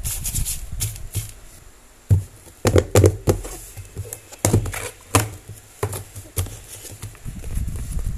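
Hands handling packing materials: shredded-paper filler rustling in a cardboard box, then a clear plastic container tapped and shifted, with irregular sharp clicks and knocks, loudest in a run about two to three seconds in, and a packet crinkling near the end.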